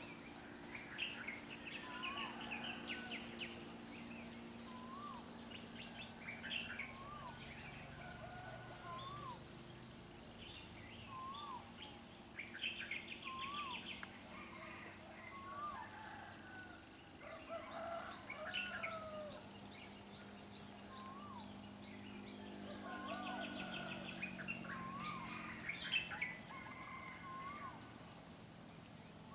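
Several wild forest birds calling: one repeats a short rising note about every second and a half while others chirp and trill in between.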